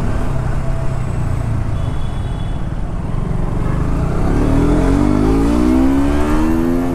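Motorcycle engine under steady low wind rush, then accelerating from about halfway through, its pitch climbing smoothly as it pulls through a gear.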